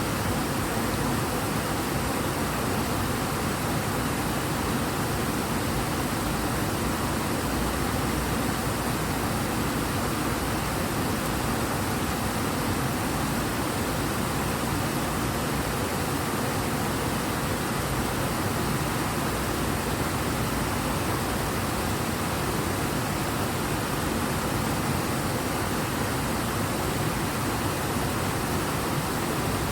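The Ebro river flowing fast and strong: a steady, unbroken rush of water.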